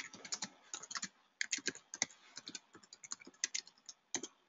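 Typing on a computer keyboard: a quick run of key clicks, with a short pause a little over a second in, stopping just before the end.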